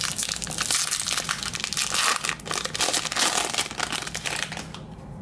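Foil wrapper of a 2021 Topps Series 1 jumbo pack crinkling and crackling as it is ripped open and peeled off the stack of cards; the crinkling stops near the end.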